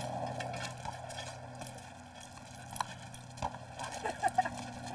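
Two dogs playing with a tetherball: a few sharp knocks and taps, clustered in the second half, over a steady background hiss.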